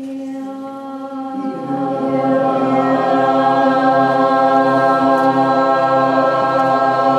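A group of voices toning, holding one steady note without words. Higher voices sound it alone at first; about a second and a half in, lower voices join an octave below and the sound grows fuller and louder.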